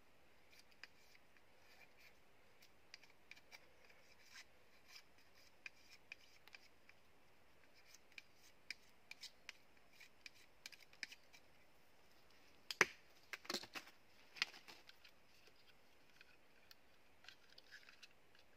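Knife shaving and whittling a thin strip of bamboo: a string of short, faint scraping cuts, with a few louder clicks a little past the middle.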